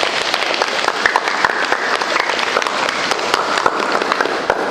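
A room of children applauding: many quick hand claps together, steady throughout and easing off at the end.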